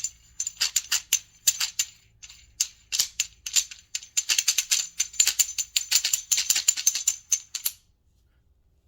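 Spring retainer collar being spun onto the threaded body of a QA1 coilover shock: a quick, irregular run of metallic clicks and rattles that stops shortly before the end.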